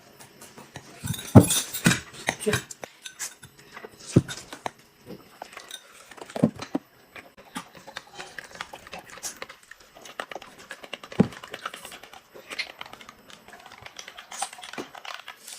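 Irregular clinks and knocks of dishes and cutlery being handled, with a few louder knocks scattered through.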